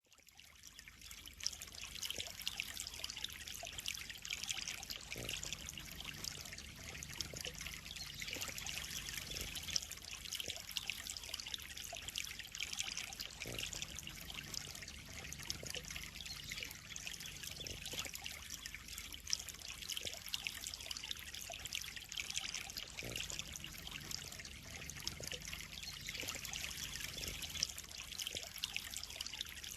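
Water trickling and splashing steadily into a koi pond, with a few small drips or splashes standing out now and then. It fades in over the first second or two.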